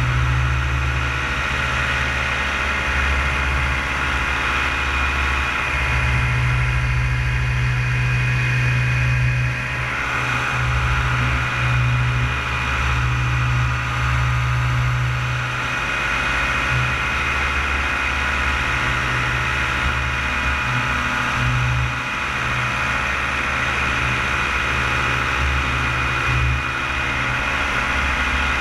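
Paramotor engine and propeller running steadily at a constant throttle in flight. Its tone shifts slightly about ten seconds in.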